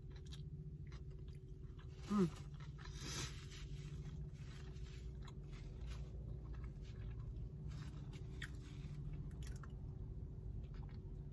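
A person chewing a mouthful of sushi with the mouth closed: soft, wet chewing clicks over a steady low hum, with a brief hummed 'mm' about two seconds in.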